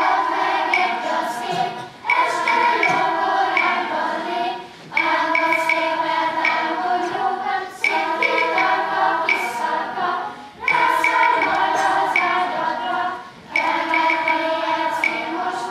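Children's choir singing in short phrases with brief breaths between them, with a few sharp taps of a wood block over the singing.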